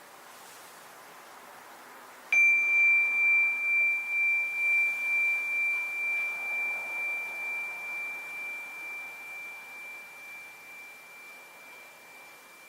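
A tamayura rin, a small Japanese Buddhist bowl bell, struck once about two seconds in and ringing a single high, pure tone that fades slowly with a steady wavering pulse. A faint hiss lies under it before the strike.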